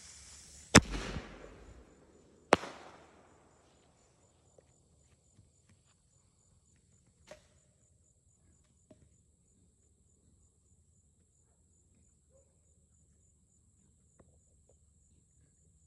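A mini paratrooper firework going off: the fuse hiss ends, then come two loud bangs about two seconds apart, each trailing off. Afterwards only a few faint clicks, with insects chirring faintly in the background.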